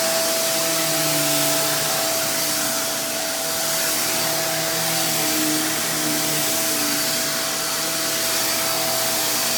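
Hoover React Professional Pet Plus UH73220 bagless upright vacuum running steadily, a rushing suction noise with a constant high whine and a lower hum that wavers slightly in pitch as the machine is worked.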